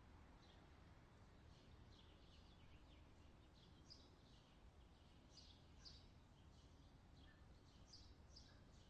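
Faint outdoor ambience: small birds chirping in short, scattered calls over a low, steady background rumble.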